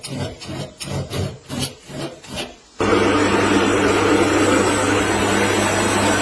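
Rhythmic rubbing or scraping strokes, about three a second, as in hand filing or sanding. Just under three seconds in, a machine starts abruptly and runs steadily with a low hum.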